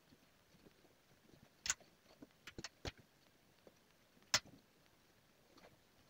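Pliers working a length of steel tie wire: scattered small clicks and ticks, with two sharper snaps, one just under two seconds in and one a little past four seconds.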